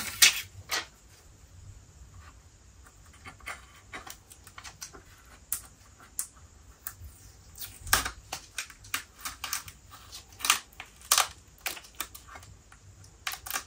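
Fingers picking at and peeling the protective film off a motherboard's plastic heatsink covers: scattered small clicks and taps, coming thicker in the second half.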